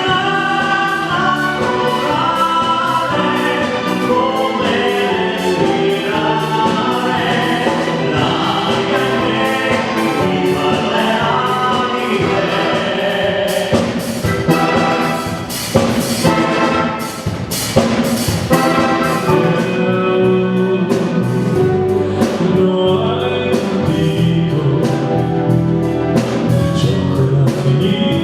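Estrada (variety) orchestra playing live, with brass over a steady drum beat.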